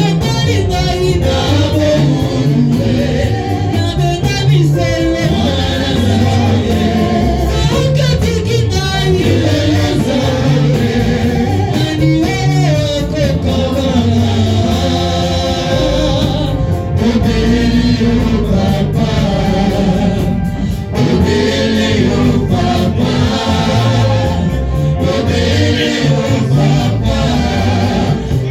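Church congregation and choir singing a gospel worship song with instrumental backing and a steady bass.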